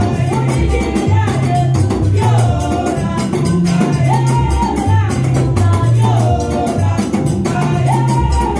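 Women singing a church praise song into microphones over amplified music with a moving bass line and a quick, steady percussion beat.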